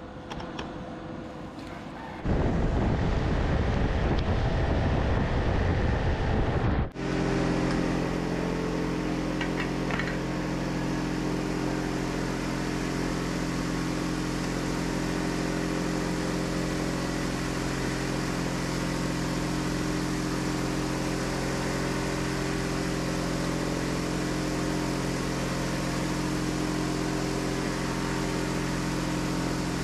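A loud rushing roar at a coal forge fire, then after a sudden cut about seven seconds in, a steady machine hum holding several steady tones.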